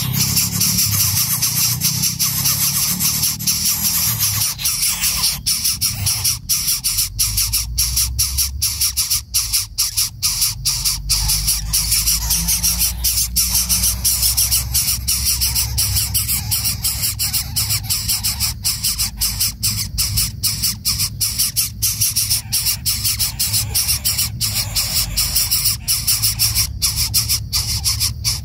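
Greater coucal chick begging at the nest: a rapid, continuous squealing that keeps on without a break.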